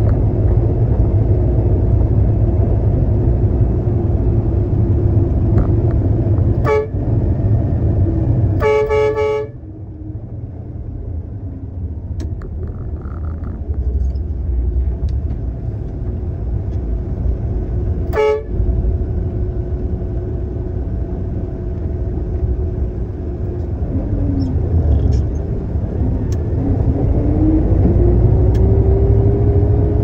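A concrete mixer truck's diesel engine running, with the horn tooted three times: a short toot, a longer honk a couple of seconds later, and another short toot about halfway through. The engine eases off after the longer honk, and near the end it rises steadily in pitch as the truck gathers speed.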